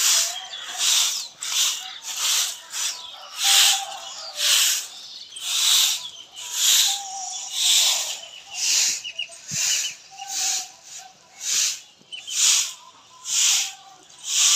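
A stiff stick broom sweeping a dusty cement floor in steady swishing strokes, about one a second.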